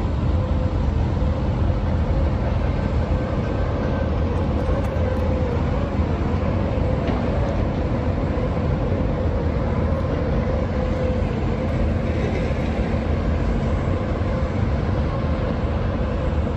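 Steady rushing rumble of wind buffeting the microphone high on an open rooftop, mixed with distant city noise, with a faint wavering hum running through it.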